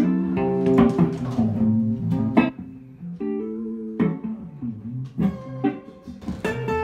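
Two hollow-body archtop guitars played together, chords under single-note lines, with a softer stretch about halfway through.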